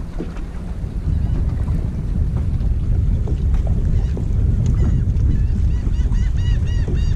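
Wind buffeting a GoPro microphone, with water lapping at a small aluminium boat's hull. A few seconds in, a bird starts calling in a rapid series of short high notes, about four a second.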